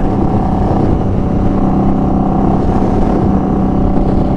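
Custom Indian Scout Bobber's V-twin engine through an aftermarket Vance & Hines slash-cut exhaust, running loud and even at a steady cruise, its pitch holding constant while the bike is ridden.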